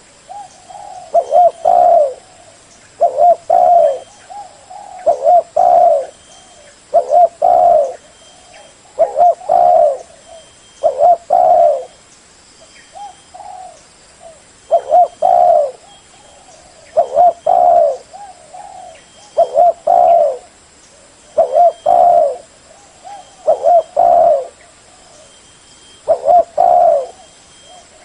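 Spotted dove cooing: a short phrase of two or three low coos repeated about every two seconds.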